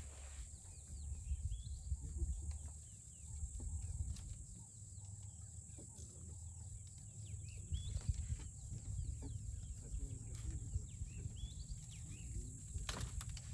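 African elephants browsing on leafy bushes: rustling and scattered snaps of twigs and branches, with a sharper crack near the end. Short rising bird chirps come a few times over a steady high insect drone and a low rumbling background.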